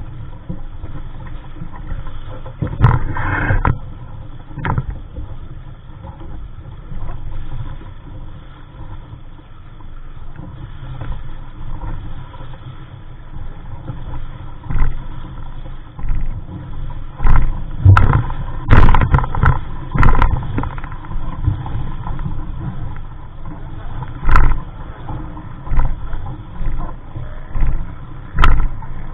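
Wind buffeting the microphone in irregular gusts, a low rumble with the loudest blasts bunched a little past the middle.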